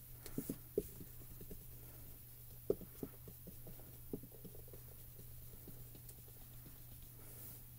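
Soft, irregular patting of a round ink blender brush dabbing blue ink onto cardstock, a few taps louder than the rest.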